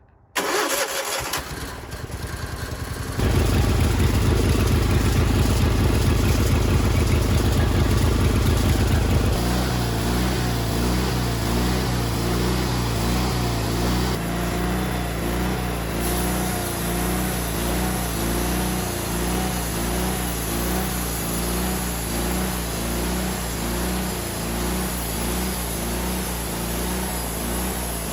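Wood-Mizer LT40 sawmill's engine cranked over by its starter for about three seconds, then catching and running fast, and dropping to a steady idle about nine seconds in as it warms up.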